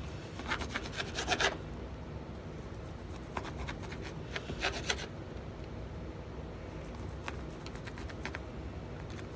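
A knife sawing through ham on a cutting board in quick back-and-forth strokes. The strokes come in bursts: about a second in, again around four to five seconds in, and more faintly around seven to eight seconds.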